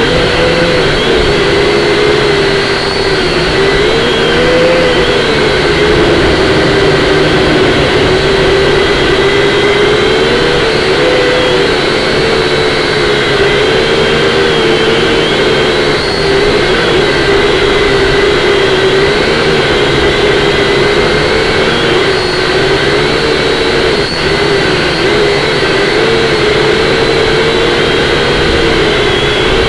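Syma X5C-1 quadcopter's motors and propellers whining, the pitch rising and falling as the throttle changes, with rough wind noise underneath.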